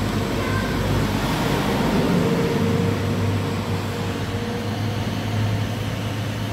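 A steady mechanical hum and rush, with a low drone that grows stronger about halfway through.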